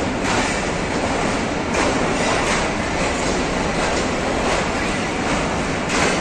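Passenger train rolling along the platform track: a steady rumble with its wheels clacking over the rail joints, a clack about every second.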